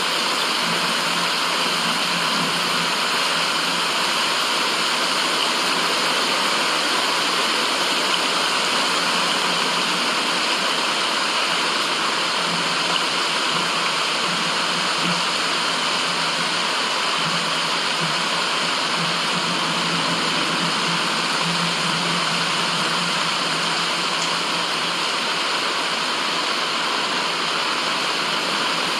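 Steady white noise with a rushing, water-like sound, even and unchanging in level.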